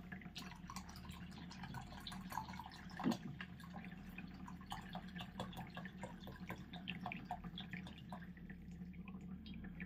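Water poured in a thin stream from a plastic bottle into the plastic upper tank of a gravity water purifier, faintly splashing and trickling. One louder knock about three seconds in.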